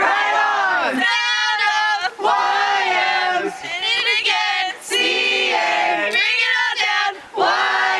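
A crowd of campers yelling together in a series of loud, long shouts, one about every second or so, as a group call at a campfire.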